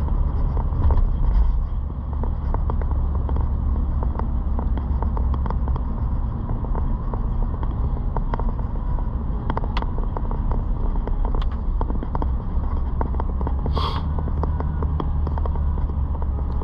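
Road and engine noise of a moving car heard from inside the cabin: a steady low rumble with small rattles and clicks, and one brief sharper sound near the end.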